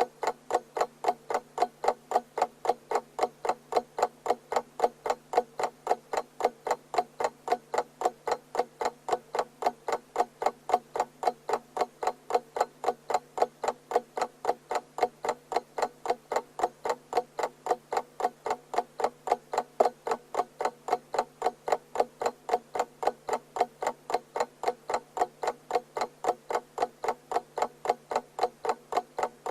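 Clock ticking steadily, with sharp, evenly spaced ticks that do not let up.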